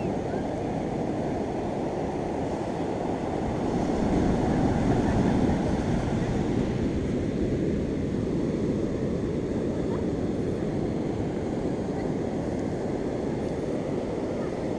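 Steady low rumble of wind buffeting the microphone over the wash of beach surf, swelling for a couple of seconds about four seconds in.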